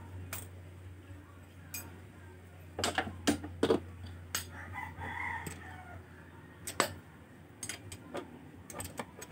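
Hand tools clicking and clinking against the scooter engine's valve gear during valve clearance adjustment, with a cluster of sharp metal clicks about three seconds in and another near seven seconds. A rooster crows in the background around the middle, over a steady low hum.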